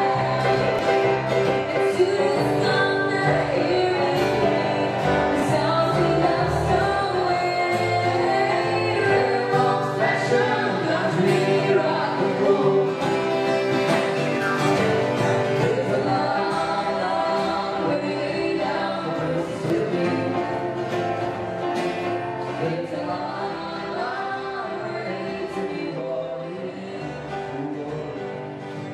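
A small live band playing a song: singing over acoustic guitar and keyboard. The music gradually fades toward the end.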